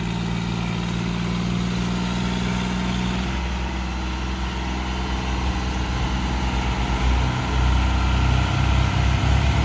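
John Deere tractor's diesel engine running as the tractor backs up slowly. The engine note drops about three seconds in and gets louder near the end.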